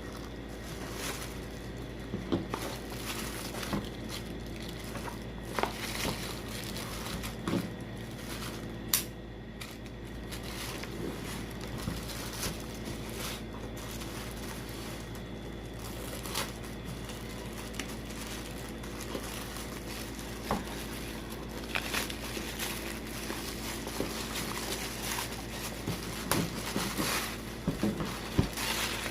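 Unboxing handling sounds: packaging crinkling and rustling, with scattered sharp clicks and taps, a few louder than the rest, over a steady low hum.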